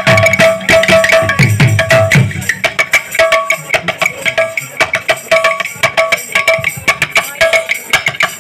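Instrumental passage of Odia kirtan music: fast, dense hand-drum and cymbal strokes over a short high melodic phrase repeated again and again, with low drum strokes bending down in pitch in the first two seconds.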